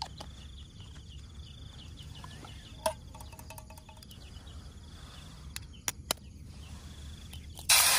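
Insects trilling steadily, with a few sharp taps as an egg is cracked on a spoon. Near the end a loud sizzle starts suddenly as the egg drops into hot oil in a camping pan.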